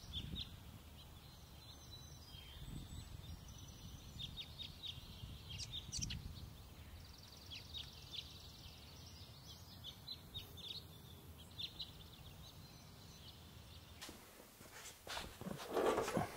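Faint small birds chirping in short, repeated high calls over a low outdoor rumble. Near the end, a few louder rustles and knocks.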